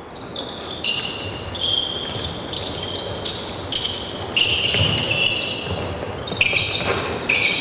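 Basketball shoes squeaking again and again on the court floor as players cut, stop and change direction during a passing drill, with a few dull thumps of feet and the ball.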